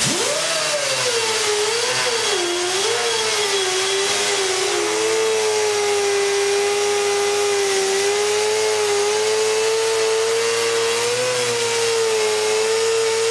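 A die grinder with a small wheel grinding paint off the steel lid of an ammo can down to bare metal. It gives a loud whine that starts suddenly, drops and wavers in pitch for the first few seconds as the wheel bites, then holds nearly steady.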